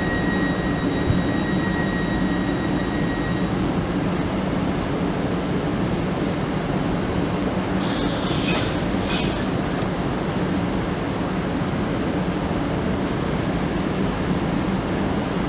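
Hitachi Class 803 electric train humming steadily at the platform, with a thin high tone that fades out about three and a half seconds in and a brief hiss about eight seconds in.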